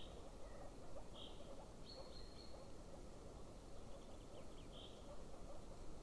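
A faint chorus of many frogs calling at once, heard as a dense, steady crackle of overlapping calls. Three short high bird chirps and a thin high whistle sound over it.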